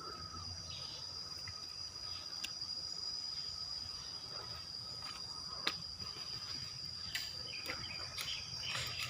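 Insects trilling in one steady high tone, with a few scattered sharp snaps of airsoft fire; the clearest snap comes a little past halfway, and a few more follow near the end.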